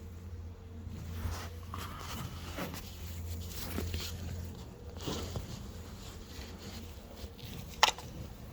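Hand tools being handled while a wrench is fetched: faint rustling and knocking, with one sharp metallic click a little before the end. A low hum underlies the first half.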